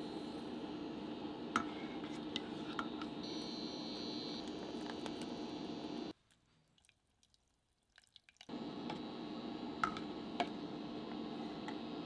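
Saucepan of water simmering on the hob, bubbling steadily with a few small ticks and pops. It cuts out to near silence for about two seconds just after the middle, then resumes.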